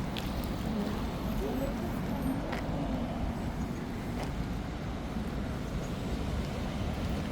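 Steady road-traffic rumble from passing cars, with a few brief sharp clicks.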